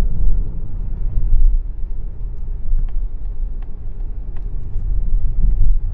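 A 2025 Mazda CX-30 on the move: a steady low rumble of road and engine noise, with a few faint clicks in the middle.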